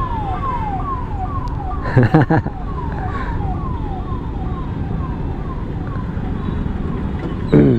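Electronic siren repeating a quick falling sweep about twice a second, over the steady rumble of road traffic.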